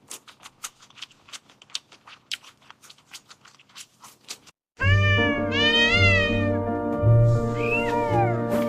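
Faint scattered clicks and taps, then music cuts in suddenly about four and a half seconds in, with a cat meowing over it in a few long, rising-and-falling calls.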